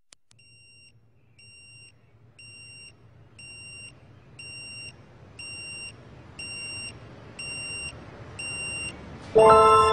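Electronic alarm clock beeping, a high beep once a second that grows steadily louder, about nine times. Near the end, music with bright chime-like tones comes in loudly over it.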